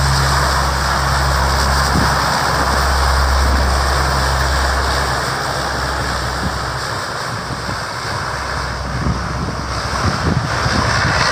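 Lockheed C-130 Hercules' four turboprop engines running as it moves along the runway: a loud, steady drone with a low propeller hum that fades about halfway through, mixed with wind rumbling on the microphone.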